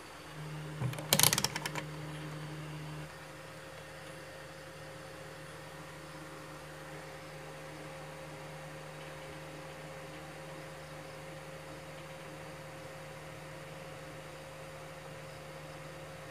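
Mains hum from a homemade DC power supply just after it is switched on. A quick cluster of clicks and knocks comes about a second in. The hum is louder at first and settles to a lower, steady level about three seconds in.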